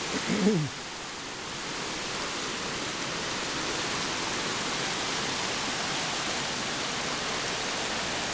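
A rain-swollen brook in flood, its water rushing in a steady, loud wash that swells over the first couple of seconds and then holds.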